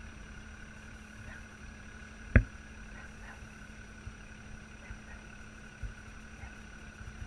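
Small boat's motor humming steadily while under way, with a single sharp knock about two and a half seconds in and a few fainter knocks afterwards.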